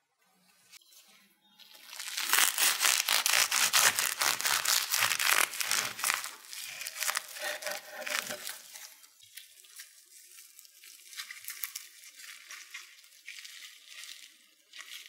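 Dense crinkling and crackling of a thin, crinkly sheet being handled, loudest for several seconds starting about two seconds in, then lighter, intermittent crinkling.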